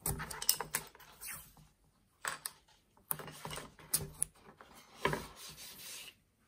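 Fingers pressing and rubbing masking tape down onto a small wooden card case, with irregular short rubbing scratches and a few light knocks of the wood against the workbench.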